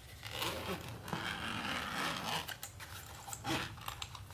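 The zipper of a hard carrying case being pulled open in one rasping stroke of about two seconds, followed by a couple of clicks from handling the case.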